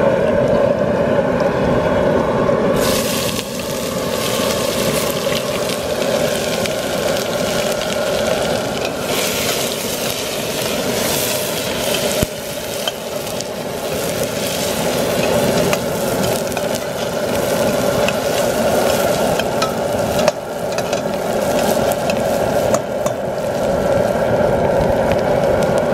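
Propane burner running steadily under a steel pot. About three seconds in, loud sizzling starts as chopped onions go into hot oil with whole spices, and the onions go on frying while a metal spoon stirs them, clinking against the pot a few times.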